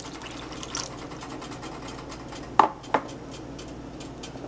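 Water poured into a hot frying pan of fried corn kernels and beans, the mixture then sizzling and bubbling steadily with fast crackling ticks. Two short knocks a third of a second apart come about two and a half seconds in.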